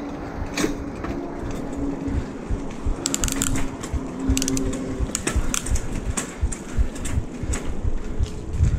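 Mountain bike rattling and clicking over a rough road, with wind rumbling on the microphone.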